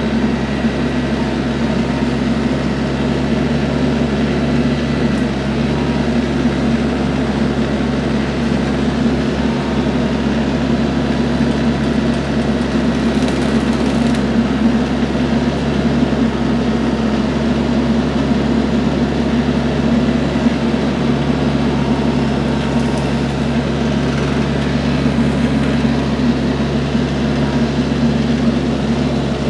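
Compact diesel tractor engine running at a steady speed.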